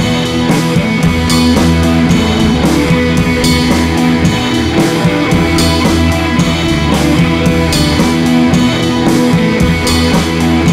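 Background rock music with guitar and drums and a steady beat.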